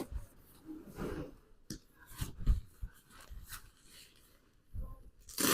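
Handling noises: scattered soft knocks and rustling as things are moved about, with a couple of heavier thumps about two seconds in and another knock near the end.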